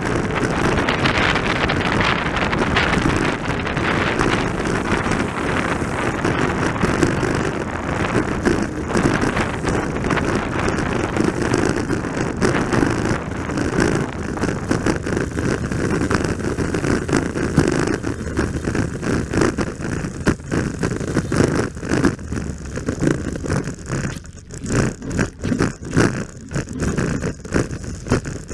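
Heavy wind buffeting on a head-worn camera microphone from riding an electric scooter at speed, a low, rumbling rush that can sound like an engine. It is dense and steady at first and turns choppy and uneven in the last third.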